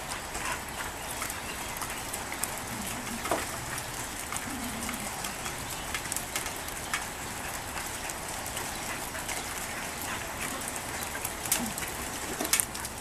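Steady rain falling, an even hiss sprinkled with many sharp drip ticks.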